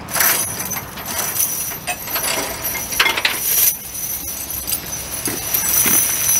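Steel triple tire chains for dual truck wheels being pulled down and dragged, their links clinking and jangling against each other in irregular rattles throughout.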